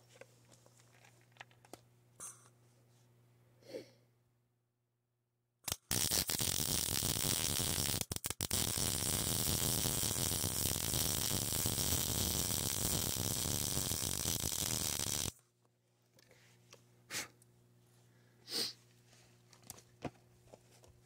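MIG welder arc crackling steadily for about nine seconds, with a couple of brief breaks a few seconds in, as it runs a bead of .035 argon-shielded wire to weld a cracked kickstand tab back onto a Honda XR250R frame.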